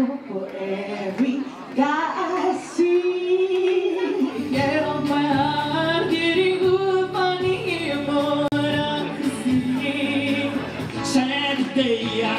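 Amateur karaoke singers singing into handheld microphones over a backing track. A woman's voice holds long, wavering notes, and near the end a man's voice is heard.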